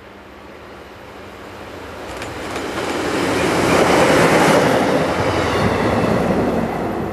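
Class 628 diesel multiple unit passing close by at speed: its engine and wheels on the rails grow louder as it approaches, are loudest about four seconds in, then fade as it moves away.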